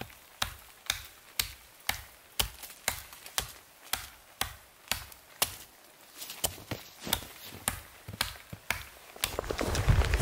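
Hults Bruk Almike hatchet chopping into a small tree trunk, sharp steel-on-wood strikes about two a second. Near the end the chopping stops and a steady low rumble takes over.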